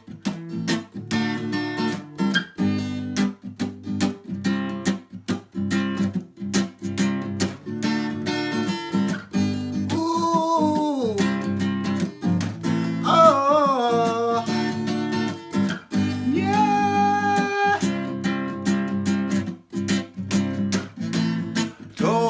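Acoustic guitar strummed in a steady rhythm as a song's introduction. Around the middle come three wordless sung phrases, each sliding down in pitch.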